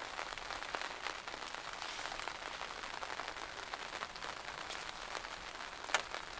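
Steady rain falling, a dense patter of small drop ticks, with one sharper click near the end.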